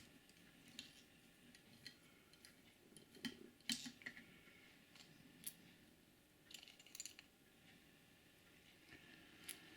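Faint, scattered small clicks and taps of a model railcar's small plastic parts and tools being handled, with a few sharper ones around a third of the way in and again in the second half.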